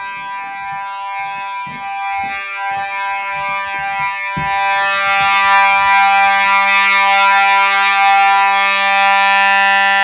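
Simplex 4903-9219 fire alarm horn/strobe sounding one continuous buzzy horn tone, growing louder about halfway through.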